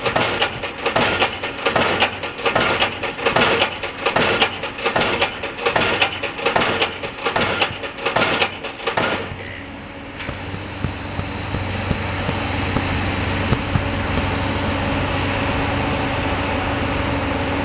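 Pile-driving hammer striking a pile in a fast, regular series of blows that stops about nine and a half seconds in. After that a steady machinery engine hum builds up and holds.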